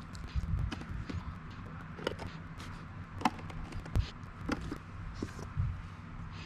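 Scattered light clicks and knocks at irregular intervals, over a steady low hum.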